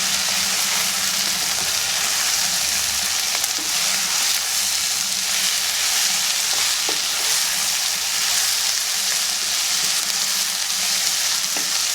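Cooked beef, onions, tomato and curry leaves frying in oil in a pan: a steady sizzle as the mixture is stirred, with a few light taps of the spoon.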